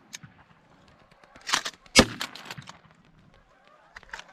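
A single shotgun shot about two seconds in, fired at ducks coming into the decoys, just after a short burst of sound.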